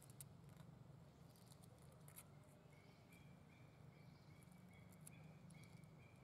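Near silence: faint outdoor ambience with scattered soft clicks and, from about two seconds in, a faint high chirp repeating about twice a second.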